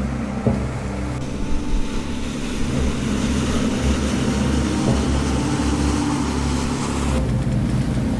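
Ship's engine running with a low, steady rumble over water noise; the sound changes about seven seconds in.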